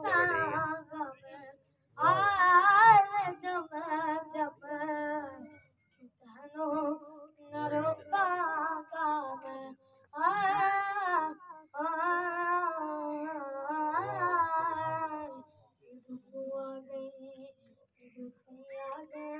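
A boy's high voice singing a naat unaccompanied, in long ornamented phrases with wavering pitch and short pauses between them, softer near the end.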